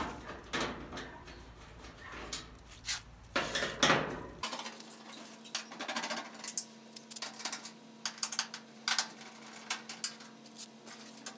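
Scattered metallic clicks and clinks as the screws are taken out of a clothes dryer's sheet-metal back panel, with a louder knock a little before halfway.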